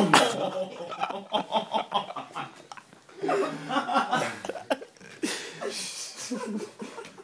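Young men laughing hard in repeated bursts of chuckles and snickers, with a sharp smack right at the start.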